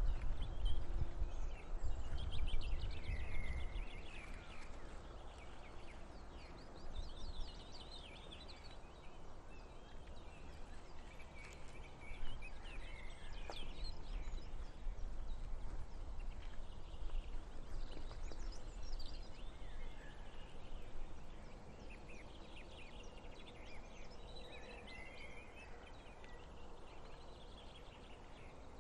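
Ospreys giving bursts of rapid, high whistled alarm calls several times over, the alarm of nesting ospreys at an intruder. A low wind rumble sits underneath, strongest in the first few seconds.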